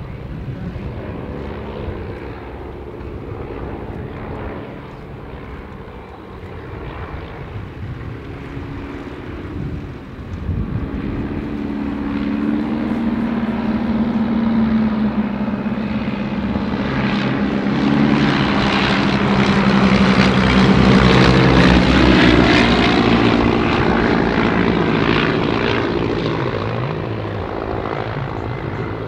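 Three de Havilland Tiger Moth biplanes flying past in formation, their four-cylinder inline piston engines and propellers droning together. The drone grows louder through the middle and peaks about two-thirds of the way in, then eases slightly as they pass.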